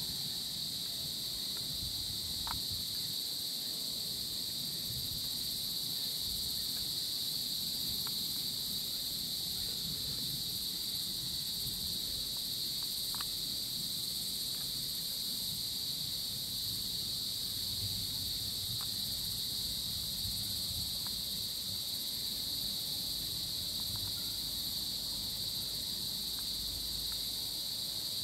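A steady, high-pitched chorus of insects, such as crickets, shrilling without a break over a low background rumble, with a few faint ticks.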